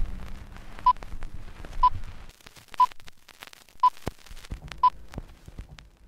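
Old film-leader countdown effect: a short beep about once a second, six in all, over the crackle and pops of worn film. A low hum drops out partway through and returns near the end.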